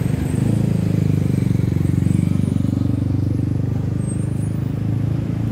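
Road traffic: a motor vehicle's engine running close by, a low drone with a fast, even pulse, loudest in the first few seconds and easing a little after.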